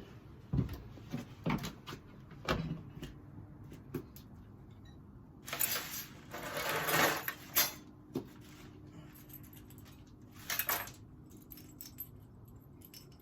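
Small hardware and parts being handled and moved about: a run of knocks, clicks and rattles, with a couple of seconds of rustling and scraping about six seconds in.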